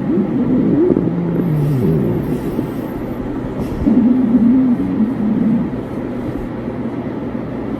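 A person's stomach growling: low wavering gurgles, with one growl sliding down in pitch about a second and a half in and another long wavering growl around four to five seconds in.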